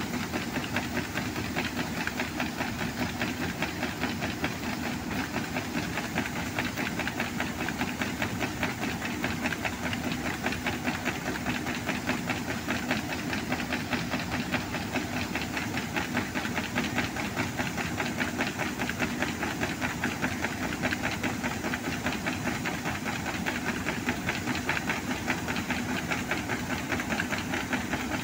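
Combine harvester running with its unloading auger pouring barley into a trailer: a steady engine drone under a dense hiss of falling grain, with a fast, even pulsing.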